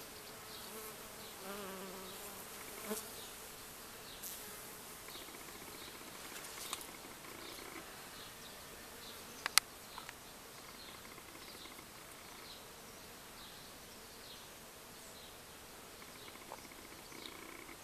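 Honeybees buzzing, one passing close with a louder buzz about a second and a half in. Faint high chirps repeat in the background, and a sharp click about nine and a half seconds in is the loudest sound.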